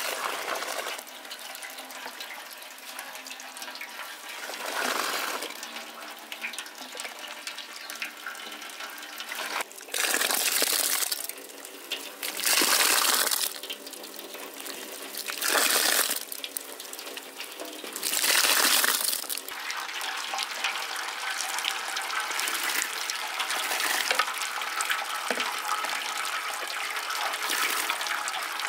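Cooked rosehip mash poured into a hanging sack strainer in four louder splashing pours, then rosehip juice streaming and dripping steadily from the sack into a metal basin.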